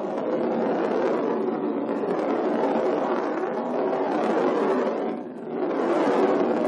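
A marble rolling around, a continuous rolling noise that drops away briefly about five seconds in and then picks up again.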